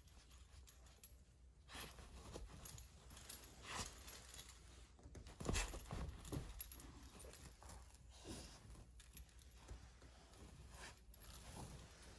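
Labrador puppy chewing and tugging at a knotted cotton sock on a fabric dog bed: faint, irregular rustling, scuffing and mouthing sounds, with a louder scuffle about halfway through.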